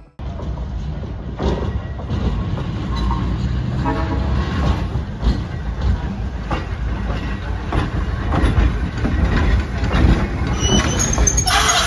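Los Angeles Railway electric streetcar No. 1201 rolling past at low speed: a steady rumble of wheels on rail with scattered clicks. A louder, higher-pitched noise comes in near the end.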